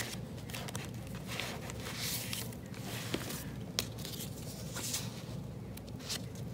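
Paper rustling and light clicks from handling tags and a small paper envelope pulled from a journal's pockets, with a few sharper ticks scattered through.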